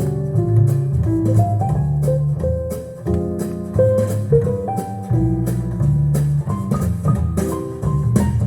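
Instrumental jazz-style music: plucked guitar notes over a bass line, with light percussion ticks, played back through a Miniwatt N3 2 × 2.5 W tube amplifier and Genelec mini monitor speakers.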